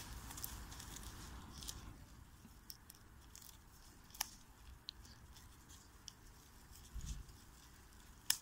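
Faint crinkling of aluminium foil and small clicks of scissors working at a string tied over the foil, with a few sharper clicks, the clearest about four seconds in and near the end.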